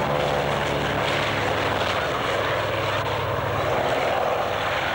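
A formation of piston-engined propeller aircraft flying low past: a Catalina flying boat with biplanes. There is a steady engine drone whose low hum gives way to a broader rush about two seconds in.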